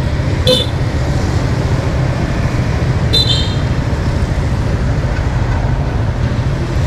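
Steady low rumble of riding a motorbike through town traffic: the engine and road noise of the moving bike with passing vehicles. Two short high-pitched chirps cut in briefly, about half a second in and again about three seconds in.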